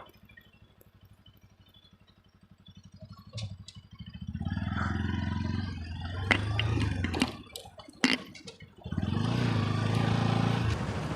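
A vehicle engine running, faint at first, then louder from about four seconds in, its pitch rising and falling. A few sharp clicks come midway, and the engine drops away briefly before picking up again.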